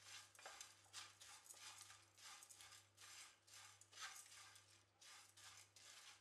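Faint, rhythmic scraping and rustling of a wooden spatula stirring dry vermicelli around a nonstick pan, about two strokes a second.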